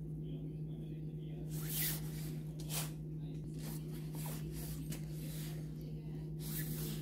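Nylon netting twine rustling and swishing as it is drawn through the meshes and pulled tight around a wooden mesh gauge while a cast net is knotted by hand: a series of short swishes about a second apart, over a steady low hum.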